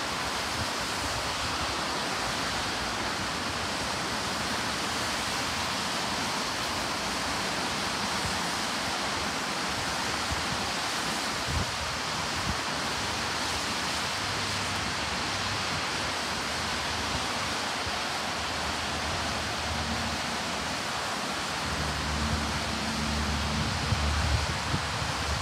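Steady hiss of rain and car tyres on a wet road, with a low rumble building near the end as cars pass close by.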